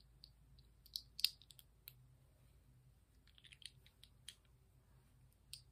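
Plastic LEGO bricks clicking as they are stacked and pressed together: scattered small sharp clicks, a couple of louder ones about a second in and a quick run of them past the middle.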